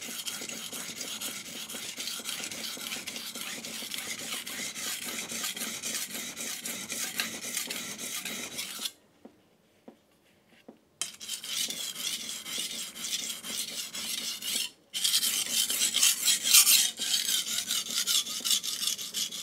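A chef's knife blade being stroked back and forth on a wet King G-45 220-grit waterstone, a steady rasping scrape. The strokes pause for about two seconds around the middle and come back louder near the end. A knocking comes from something loose on the table as the stone is worked.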